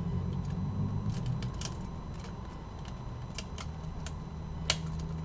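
Scattered small clicks and ticks of plastic and metal parts as the plastic frame of a Sony WM-FX661 Walkman's tape mechanism is pried loose, the sharpest one about four and a half seconds in, over a low steady hum.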